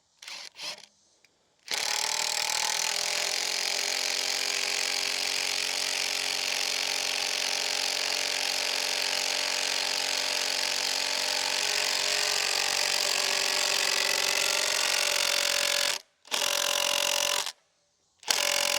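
Power drill running under load for about fourteen seconds, driving a screw into a pre-drilled hole in hard, seasoned oak, then two shorter pulls near the end. The screw still does not seat fully, and a larger, longer pilot hole is needed.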